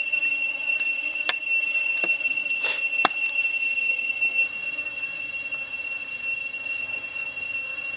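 Steady high-pitched insect drone, and about halfway through it gets quieter. Four sharp clicks of a knife on a wooden chopping board come between about one and three seconds in.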